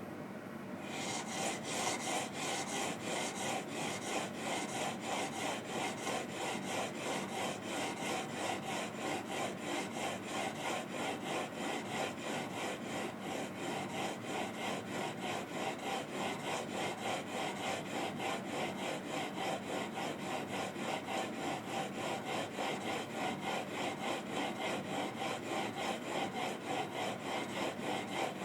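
Chisel bevel, clamped in a honing guide, rubbed back and forth on a 600-grit diamond sharpening stone wet with lapping fluid. The rapid, even scraping strokes start about a second in and keep a steady rhythm.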